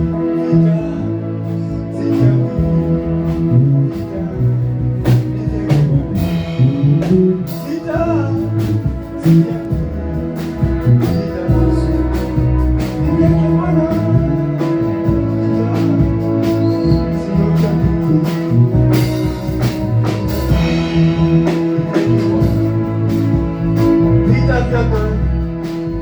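Gospel worship music: sustained keyboard chords over a bass line, with regular drum hits and some singing.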